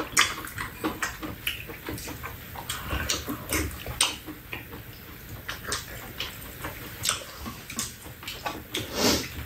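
Two people eating with metal spoons: chewing and lip-smacking, with scattered sharp clicks of the spoons against ceramic bowls.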